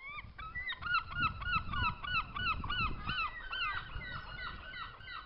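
A flock of birds calling in a rapid, overlapping chatter of short calls that rise and fall in pitch, several a second, with a low rumble underneath.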